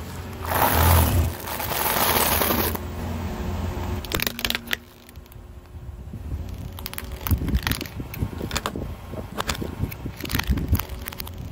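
A car tyre rolls over a pile of dry instant noodles, giving a loud crunching for about two seconds near the start. Later comes a string of irregular sharp cracks and snaps as the tyre creeps over small hard bits.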